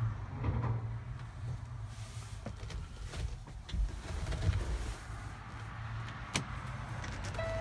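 Low, uneven rumble with light knocks and a sharp click about six seconds in. Near the end a steady buzzer tone starts.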